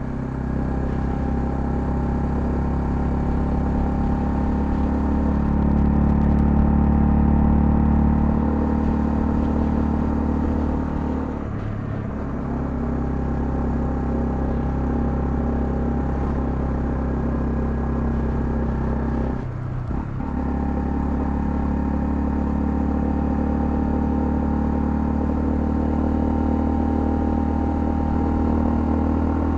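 Honda CL250's single-cylinder engine running steadily under way, with two brief breaks in the engine note about twelve and twenty seconds in, typical of gear changes.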